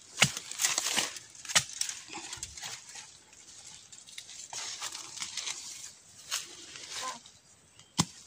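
Dry leaves, twigs and bamboo undergrowth rustling and crackling as someone pushes through them and works at the ground, with a few sharp knocks, the loudest just after the start.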